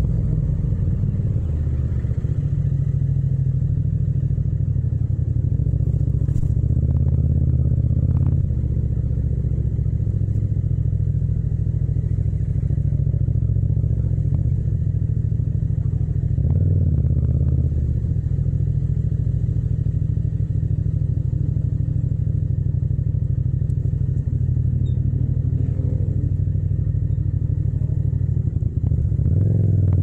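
Yamaha MT-07's 689 cc parallel-twin engine running in second gear at low speed, a steady low rumble with small rises and falls in revs as the throttle is worked, recorded without wind noise.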